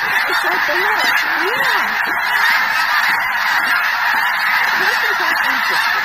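A huge flock of snow geese calling all at once, a dense unbroken din of honking, with single calls standing out now and then.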